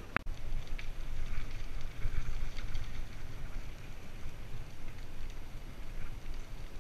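Wind rumbling and buffeting on a helmet-mounted camera's microphone while riding a bicycle, with the tyres rolling over the gravel trail.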